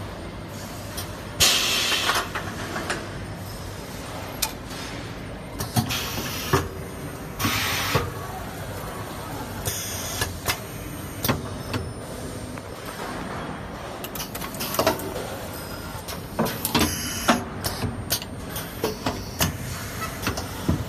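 Automated stator laser-welding machine running: pneumatic cylinders clack and knock as they actuate, with several short hisses of air venting, over a steady machine hum.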